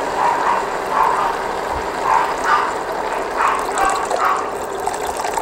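Water poured in a steady stream from a kettle into a wok of sautéed tomatoes, onions and ginger, splashing into the liquid.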